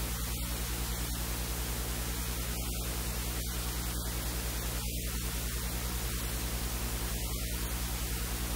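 Steady electrical hum at about 50 Hz and its overtones under a constant hiss. This is the noise floor of the recording itself, and no other sound stands out from it.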